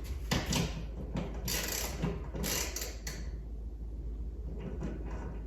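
Tools and loose hardware being handled while trying a bolt for fit: a run of clicks, rattles and short scrapes over the first three seconds, then quieter handling.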